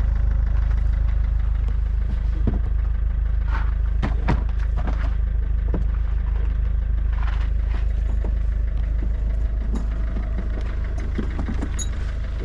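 A steady low rumble with scattered short knocks and clatters.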